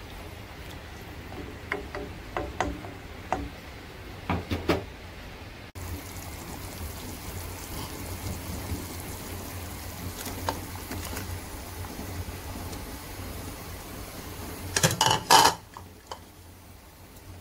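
A wooden spoon stirring pig trotters in a stainless steel stockpot, knocking against the pot several times. Then the dark braising liquid bubbles steadily at a boil, and a loud brief clatter comes near the end.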